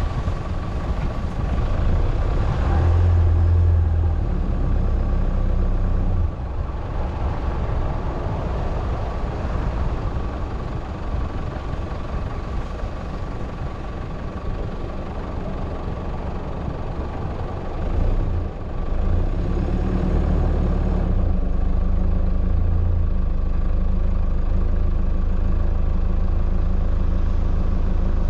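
A four-wheel drive's engine running and its tyres rolling over a dirt and gravel track, heard from inside the cabin as a steady low rumble. It eases off for a stretch in the middle and grows louder again about two thirds of the way through.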